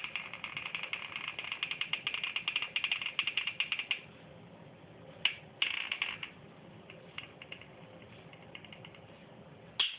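Caulking gun dispensing a bead of clear silicone: a rapid run of small clicks for about four seconds, then a few single clicks, a short burst near six seconds and a louder click near the end.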